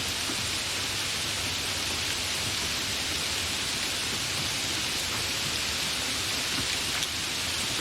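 Steady, continuous rain: an even hiss of falling rain that does not change.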